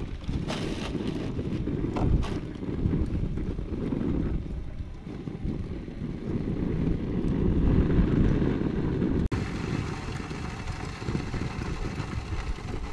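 Wind buffeting the microphone, a low rumbling noise that swells and fades in gusts. About nine seconds in it cuts off abruptly and goes on steadier, with more hiss.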